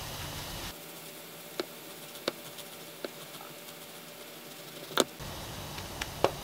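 Serrated bread knife cutting a bagel in half on a wooden cutting board: scattered sharp clicks and crackles of the crust, the loudest about five seconds in.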